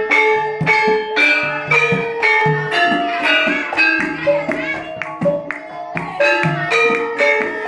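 Javanese gamelan ensemble playing: bronze metallophones and kettle gongs struck in a steady pulse about twice a second, their notes ringing on, with low drum strokes underneath.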